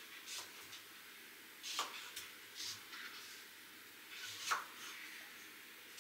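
A few short, light clicks and rustles in a small room, the loudest about four and a half seconds in.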